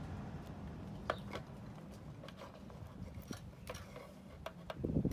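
Small plastic wire connectors being handled: scattered light clicks and taps as they are worked apart, with louder, denser knocking and rustling near the end.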